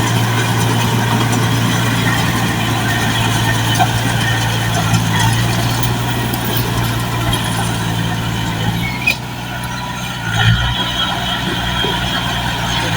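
Engine of a heavy machine running steadily at a low, even pitch, dropping briefly about nine seconds in and picking up again a second or so later.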